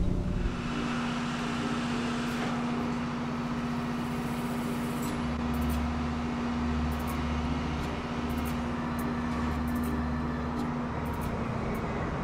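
Ferry engines running with a steady hum and constant drone, heard on the open car deck, with low rumble swelling in the second half and a few faint metallic clicks.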